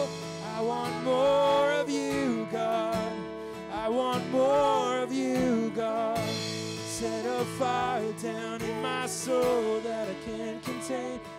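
Worship song: a voice singing a melody over guitar accompaniment.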